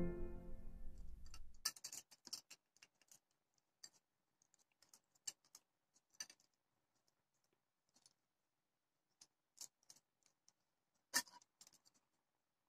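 Piano music fading out over the first second or two, then faint, scattered small clicks and taps from handling acrylic flower petals and wire stems on a table, with one sharper click about eleven seconds in.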